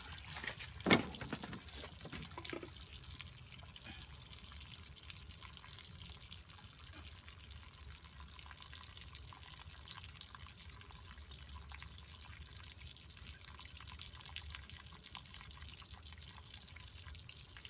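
Faint steady background noise with a few sharp clicks in the first couple of seconds, the loudest about a second in. The outboard motor is not heard running.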